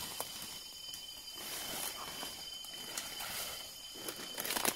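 Footsteps and rustling through forest undergrowth, with a louder cluster of crunches near the end, over a steady high whine of insects.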